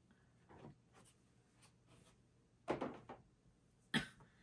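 Makeup products being handled and set down: faint rustles and light taps, a louder knock about three seconds in and a sharp click near the end.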